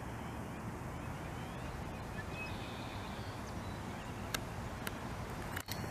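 Steady low outdoor background rumble with a few faint clicks in the second half.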